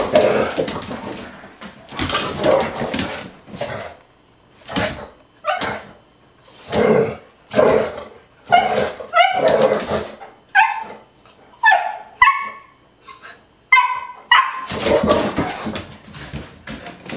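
Two dogs, a large yellow dog and a small puppy, play-fighting: a run of short barks and high-pitched yips about one a second, with longer rough, noisy stretches near the start and the end.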